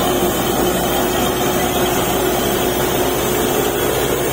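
Truck-mounted borewell drilling rig and its air compressor running steadily while drilling, a loud even drone with one constant hum-like tone.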